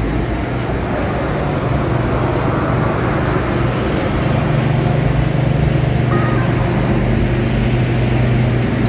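Steady, unbroken engine drone with a low hum.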